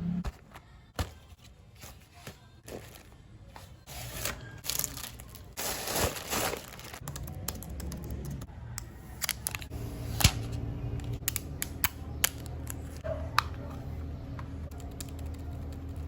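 Packaging being handled and torn open: tearing and crinkling with scattered sharp clicks and taps. A low steady hum comes in about halfway through.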